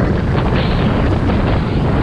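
Jet ski running fast through river rapids: its engine and the rush of water are mixed into heavy wind buffeting on the microphone, a loud, steady rush with no gaps.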